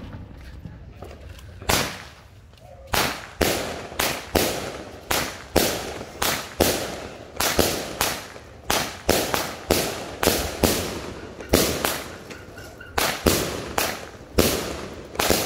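A 20-shot 'Poke the Bear' consumer firework cake firing. Its shots launch and burst overhead in a steady string of sharp bangs, roughly two a second, starting about two seconds in.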